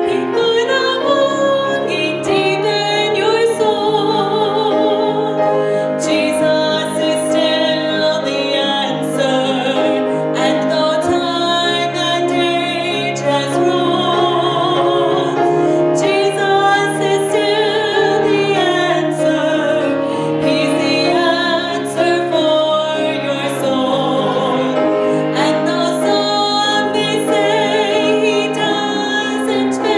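A woman singing a solo with vibrato, accompanied by piano.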